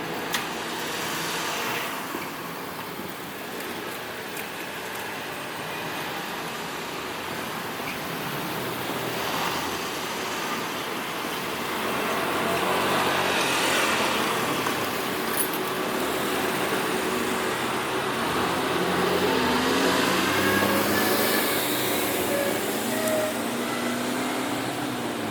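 Road and rail traffic at a level crossing: a steady noise of vehicles and a train that grows louder about halfway through, with whining motor tones that rise and fall in pitch.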